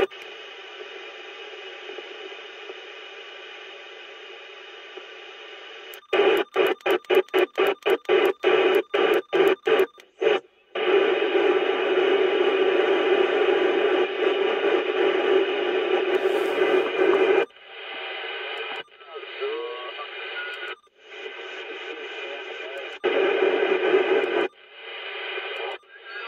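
President McKinley CB radio's speaker giving out steady static hiss with carrier-like tones. About six seconds in, the sound chops on and off about four times a second as the channels are stepped through. After that comes a louder stretch of steady noise, and from about seventeen seconds the noise comes in separate stretches broken by short gaps.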